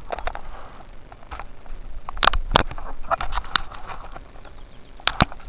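Handling noise from the camera being moved about: scattered clicks and knocks, the loudest a couple just past two seconds in and one near the end.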